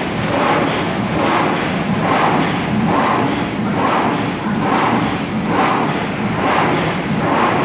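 MY1300 automatic top-feed die-cutting machine running, feeding and cutting sheets of duplex board. A steady machine noise carries a regular stroke that repeats about once every 0.9 seconds.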